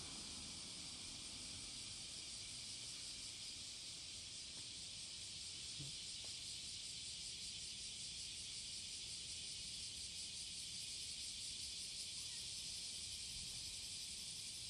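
Cicadas singing: a steady, high-pitched buzzing drone that carries on without a break.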